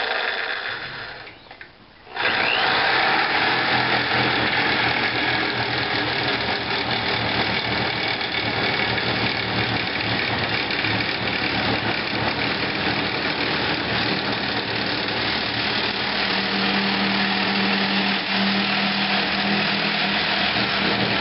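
Corded reciprocating saw cutting through the steel piece on an aluminum-copper radiator held in a vise. It stops briefly about a second in, starts again about two seconds in and keeps cutting steadily.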